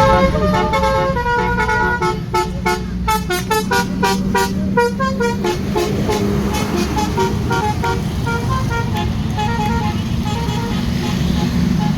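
Bus telolet horn, the multi-tone horn set of an Indonesian tourist bus, playing a quick tune of short stepped notes over the steady running of the bus's engine.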